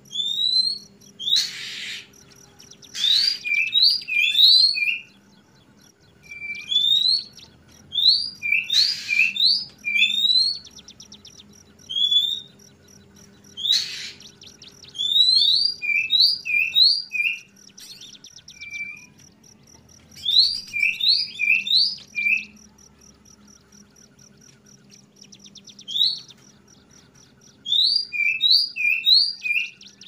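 Oriental magpie-robin (kacer) singing its 'ngeplong' song. Short, clear rising whistles come in quick runs of three or four, broken now and then by short harsh rasping notes, phrase after phrase with brief pauses between.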